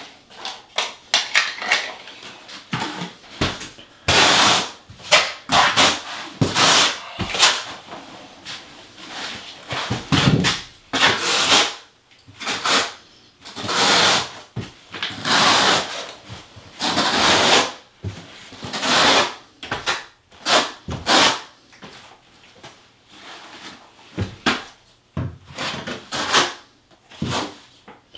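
Steel notched trowel spreading and combing thinset mortar across shower wallboard: a run of rough scraping strokes, each about half a second to a second long, coming at an uneven pace.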